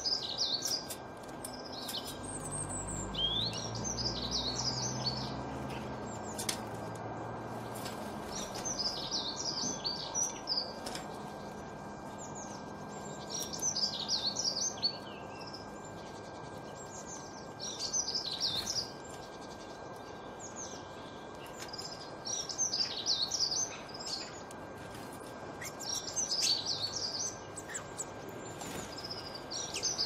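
Small songbirds singing: short bursts of rapid high chirps that come again every few seconds, over a steady background hiss. A faint low rumble sits under the first few seconds.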